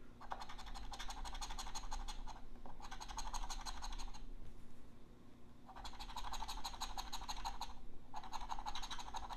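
A scratching tool scraping the coating off a scratch-off lottery ticket in rapid back-and-forth strokes, in four runs with short pauses; the longest pause falls near the middle.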